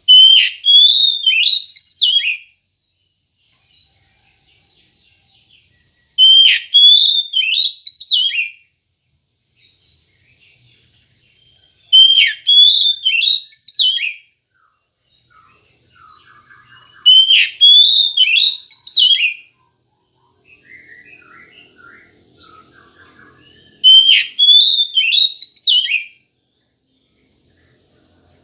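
Oriental magpie-robin (kacer) singing: the same loud whistled phrase, about two and a half seconds long, repeats five times roughly every six seconds, with faint softer chirps in between.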